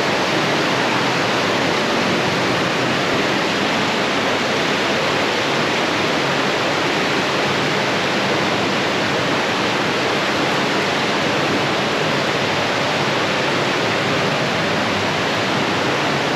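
Loud, steady rush of stream water pouring out of a rock tunnel, with no change throughout.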